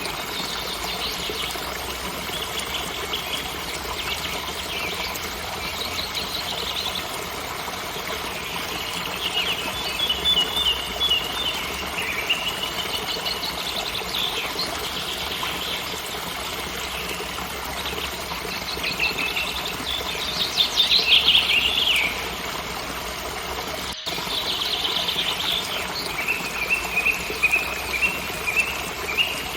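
Songbirds chirping and trilling in repeated short phrases over the steady rushing of a waterfall; the song is loudest about two-thirds of the way through.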